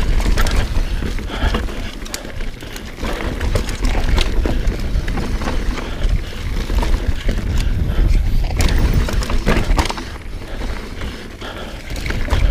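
Mountain bike riding fast down a rough dirt trail: wind buffets the microphone with a heavy rumble, and the chain and frame rattle and knock over roots and rocks many times.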